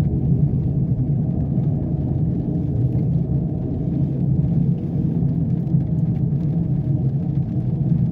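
Steady low rumble of a vehicle's engine and running gear heard from inside its cab while moving.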